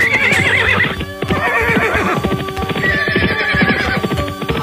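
Cartoon horse whinnies, two quavering neighs in the first two seconds, over a quick clip-clop of hooves and background music.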